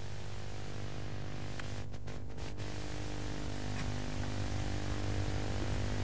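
Steady hiss and low hum of an old videotape soundtrack, with no narration or music.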